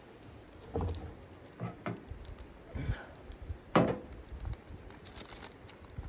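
Handling sounds: a few dull knocks and rustles, with one sharper, louder knock a little under four seconds in, as a ceramic mug is set down on the steel top of a wood-burning camp stove beside a kettle.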